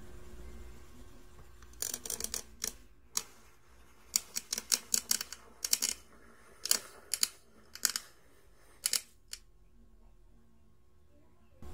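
A run of about twenty sharp clicks at an uneven pace, some in quick pairs and clusters, starting about two seconds in and stopping a few seconds before the end, over a faint steady hum.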